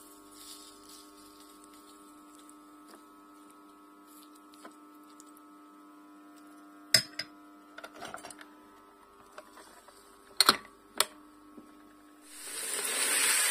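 Steady electrical hum with scattered clicks and knocks as batter is spooned onto an electric waffle maker and its plastic lid is shut, with two sharp knocks about ten and a half seconds in. Near the end a loud frying hiss sets in.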